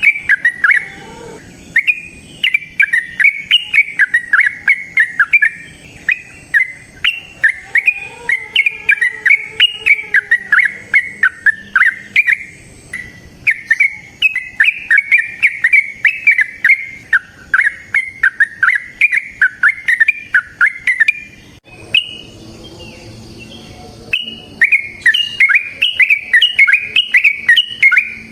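Yellow-vented bulbul (trucukan) singing its long 'ropel' song: long runs of rapid, bubbly, fluty notes at about three to four a second. The runs pause briefly several times, with a longer break of about three seconds near the end before the song starts again.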